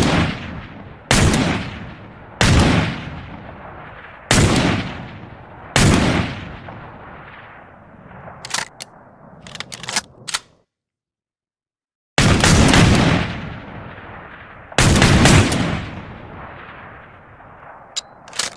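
Shots from an 1858 cap-and-ball revolver, each with a long echoing tail: five shots a second or two apart, then a few sharp clicks of the action. After a short pause come two more shots, and more clicks near the end.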